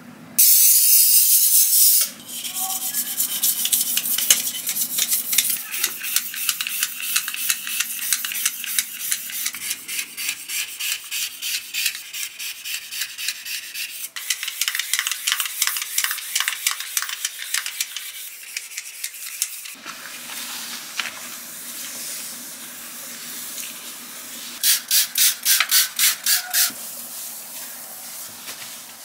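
An aerosol can of sticker remover sprays in one steady two-second hiss, used to loosen grease stains on a countertop. Fast back-and-forth scrubbing strokes with a small scrubber on the countertop follow for about eighteen seconds. Near the end, about eight quick squirts of a disinfectant spray bottle.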